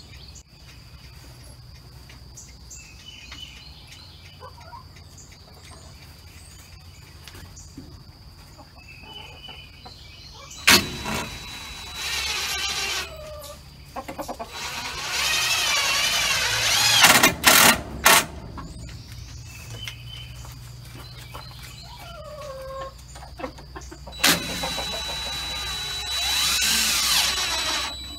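Chickens clucking softly now and then, then a cordless drill driving screws into wood overhead in three bursts of a few seconds each through the second half.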